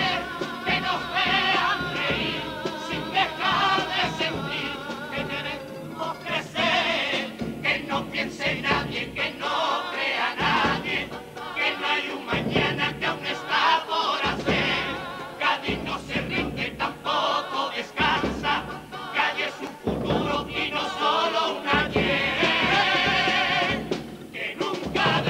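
Cádiz carnival comparsa, a male chorus, singing a song in several-part harmony to Spanish guitar accompaniment.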